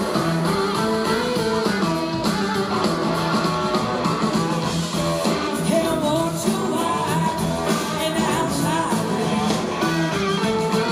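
Live blues-rock band playing: two electric guitars over a drum kit.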